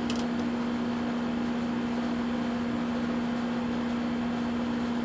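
A steady low hum over an even hiss, like a motor running, with a few faint clicks right at the start.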